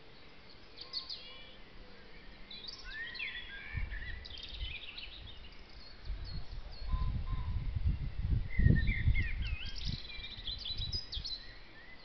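Small woodland songbirds singing and calling: many short chirps and whistled phrases from several birds. Irregular low rumbling noise comes in about four seconds in and again from about six to ten seconds, loudest around nine seconds.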